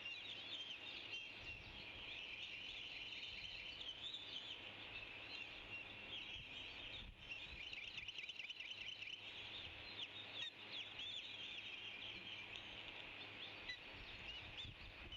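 Many high, chirping bird calls overlapping in a dense, steady chatter.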